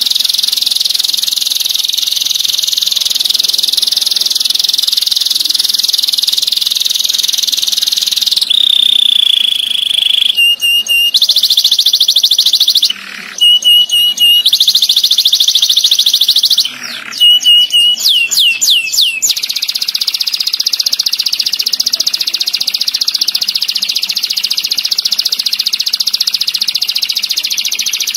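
Canary singing: a long, tight rolling trill, broken in the middle by several seconds of sharp repeated notes and a run of quick downward-sweeping notes, then rolling again.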